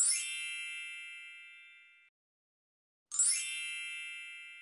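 A bell-like chime sound effect: a metallic ding that rings on and fades, cut off abruptly about two seconds in, then the same ding again about three seconds in.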